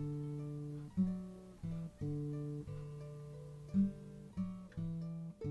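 Background music: an acoustic guitar picking single notes over held low notes, a new note struck every half second to a second.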